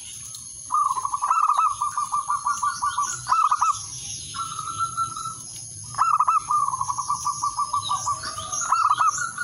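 Male zebra dove cooing: two long bouts of quick staccato coos, about five a second, each ending in a few louder notes, with one held coo between them about four seconds in. A steady high whine and faint high chirps sit behind.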